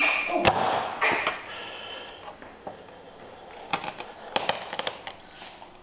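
Kitchen knife cutting skinned rattlesnake into chunks on a plastic cutting board: handling and cutting noise in the first second or so, then a quick run of sharp knocks of the blade against the board about four seconds in.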